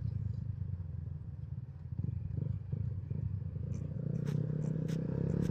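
Motorcycle engine running with a steady low rumble; its tone firms up and grows a little stronger about four seconds in. A few short sharp ticks come near the end.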